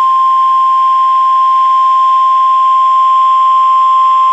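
Emergency Alert System warning alarm tone from NOAA Weather Radio: a single loud, steady tone at about 1,050 Hz, held unbroken, signalling an incoming severe thunderstorm warning.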